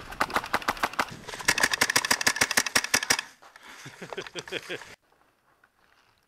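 PolarStar Jack HPA-powered M4 airsoft rifle firing on full auto: a long string of rapid sharp shots, about ten a second, for around three seconds, followed by quieter clatter.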